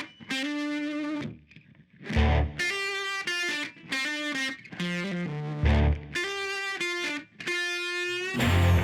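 Background rock music: distorted electric guitar playing sustained chords in short phrases, with heavy low hits every few seconds.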